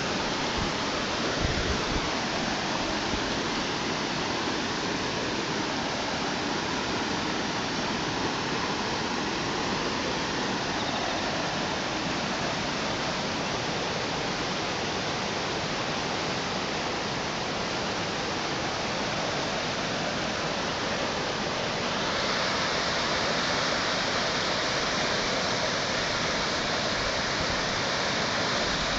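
Creek floodwater rushing and churning through trees, over a path and past fence posts, a steady dense rush of turbulent water. It gets louder and brighter about two-thirds of the way through, with a few low thumps near the start.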